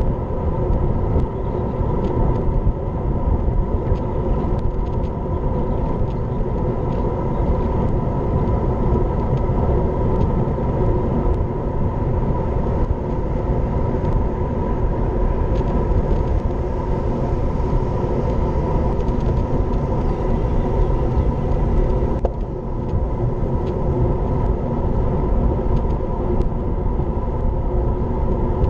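Wind rushing over an action camera mounted on a moving road bike, a loud, steady rumble with a constant hum running underneath.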